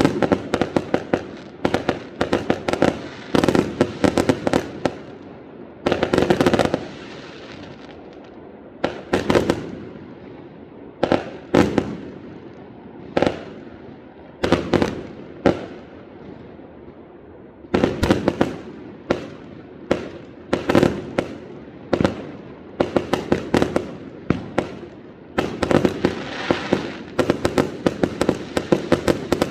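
Fireworks going off: repeated sharp bangs and runs of rapid crackling, many with an echoing tail. The densest volleys come near the start and again near the end.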